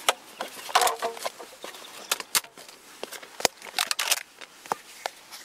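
Clear plastic food tub being handled and its rubber bands pulled off: irregular sharp clicks and short crinkly plastic rustles.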